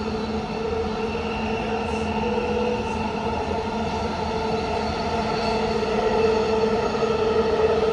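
Inside a Siemens Inspiro metro car running through a tunnel: a steady rumble of the train with several steady tones of motor hum and whine over it, growing slightly louder near the end.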